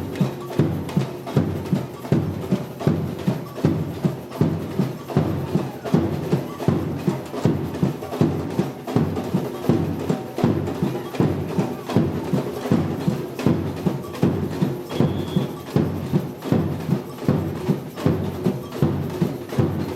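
Batucada samba percussion group playing a steady driving beat, with loud drum strokes about twice a second.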